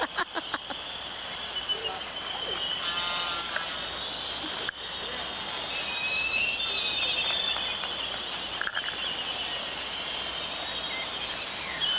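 A garden hose with a pistol-grip spray nozzle sprays a steady hiss of water into a bucket sieve, washing seal scat. Many short, high chirps and rising calls of seabirds sound over it.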